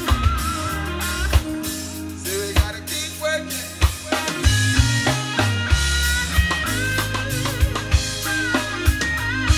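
Live reggae band playing through a Danley SM80 and TH118XL PA system: a heavy bass line and drum kit hits under guitar and keyboard parts, with a wavering melody line on top.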